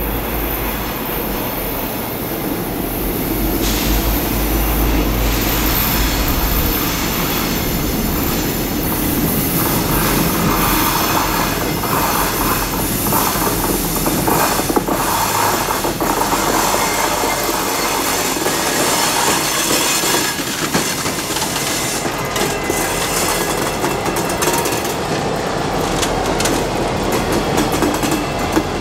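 Diesel-hauled freight train rolling past: the locomotive's engine rumble and steel wheels running over the rails, with the deep rumble heaviest in the first few seconds.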